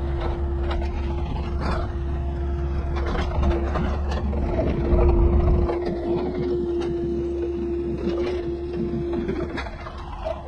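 Mini excavator's diesel engine running under load with a steady hydraulic whine, which stops about nine seconds in. The engine's low drone eases a little past halfway, and the bucket scrapes and knocks through loose soil and stones.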